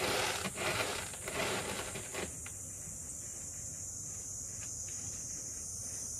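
A cat scratching and raking pellet litter in its litter box, a run of rustling scrapes in the first two seconds, covering up after urinating. After that it goes quieter.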